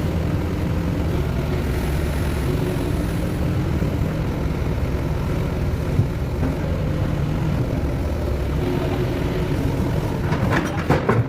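Heavy engine running steadily, with a few sharp metal clanks near the end.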